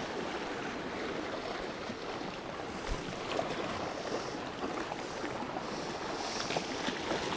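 Steady rush of sea water washing against shore rocks.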